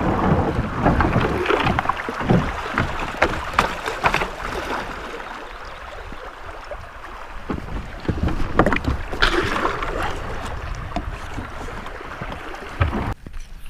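Kayak on the move: water sloshing and splashing around the hull, with scattered knocks and clunks and a louder splash about nine seconds in.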